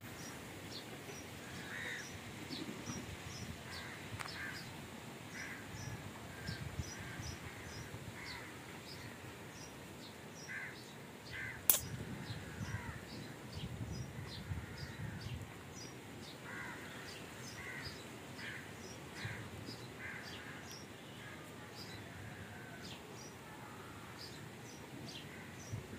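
Birds calling: repeated short calls mixed with many quick high chirps, and one sharp click about halfway through.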